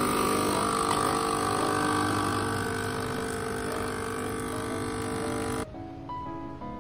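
Capsule espresso machine's pump buzzing steadily as it brews a shot into a glass, then stopping abruptly near the end.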